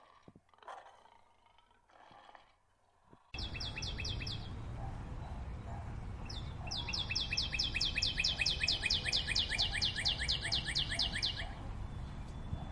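A songbird repeats a rapid series of sharp, high downslurred notes: a short burst, then a long trill of about six notes a second that lasts about five seconds. Steady background noise sets in suddenly about three seconds in.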